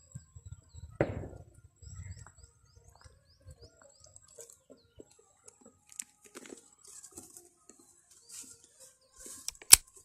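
Small birds chirping over the sounds of a bamboo-framed net being worked at the river's edge: a thump about a second in, then scattered rustling and sloshing. A sharp click near the end is the loudest sound.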